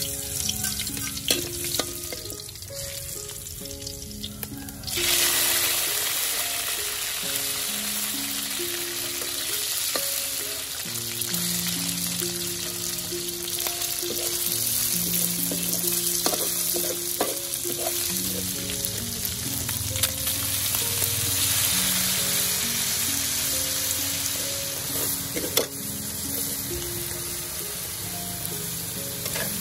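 Oil with chopped garlic sizzling in a steel wok over a wood fire, with a metal spatula clicking and scraping against the pan. About five seconds in, the sizzle jumps much louder and stays loud as chicken pieces go into the hot oil. Quiet background music with held notes underneath.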